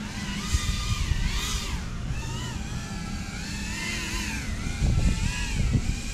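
An FPV quadcopter's motors whining, the pitch rising and falling in smooth swoops as the throttle changes, over low rumbling that swells about five seconds in.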